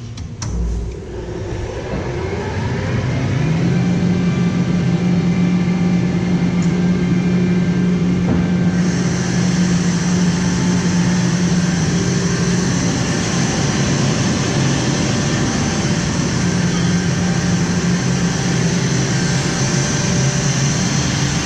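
Kaeser BS 61 rotary screw air compressor starting up. There is a thump, then a hum that builds over about three seconds and settles into a steady run. About nine seconds in, a high hiss joins it.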